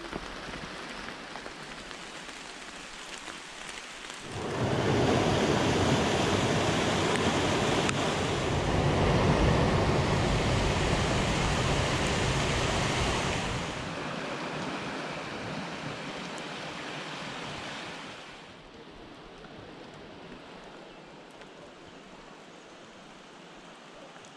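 Steady rushing of running water. It swells sharply a few seconds in, stays loud for about nine seconds, then falls away in two steps.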